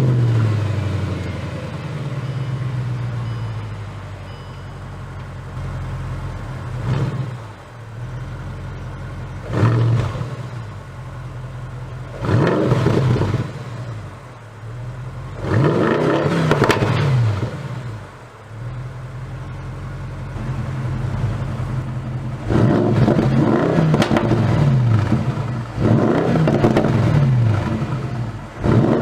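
Bentley Continental GT3-R's twin-turbo 4.0-litre V8 through an Akrapovic titanium exhaust, revving and accelerating. The engine note rises and falls many times, with a long loud stretch in the last third.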